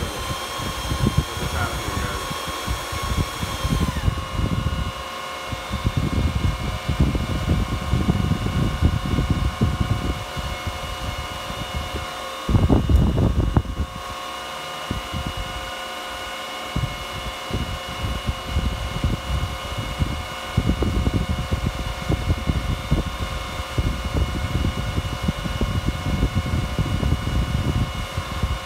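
Antminer S9 Bitcoin miner's 120 mm cooling fans running at full speed, a steady whine of several fixed tones, with the fan's air stream buffeting the microphone as a gusty low rumble that swells briefly about halfway through.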